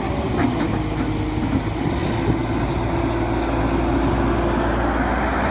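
Tata Hitachi EX200 Super excavator's diesel engine running steadily under work, with a held tone running through it.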